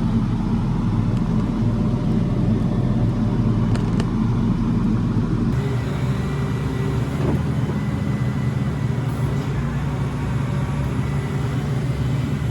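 Volvo ECR235 crawler excavator's diesel engine running steadily, its sound shifting abruptly about five seconds in.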